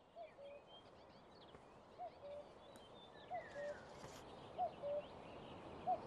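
Birds calling in floodplain woodland: a low two-note call, a short upswept note then a flatter lower one, repeated five times, over a faint chorus of high songbird chirps and trills.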